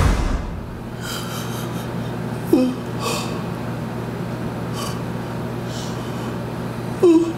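A person's breath sounds with two short vocal sounds that fall in pitch, one about two and a half seconds in and a louder one near the end, over a steady low hum.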